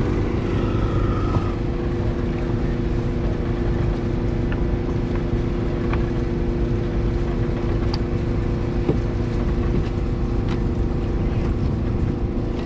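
A small engine running steadily at a constant speed, with a few faint ticks and clicks over it.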